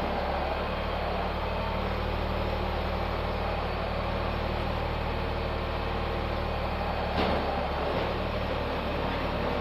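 Diesel engine of a piece of digging equipment running steadily, with a short knock about seven seconds in.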